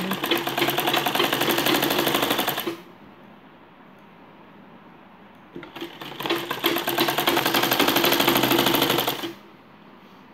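Black domestic sewing machine stitching in two quick runs. The first run stops about three seconds in. The second starts about five and a half seconds in, speeds up, and runs for about three and a half seconds before stopping.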